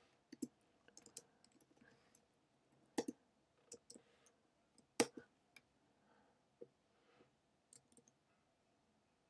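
Computer keyboard keystrokes: sparse, irregular typing with a few sharper strokes about three and five seconds in.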